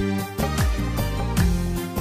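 Background music with a steady beat and deep drum strokes.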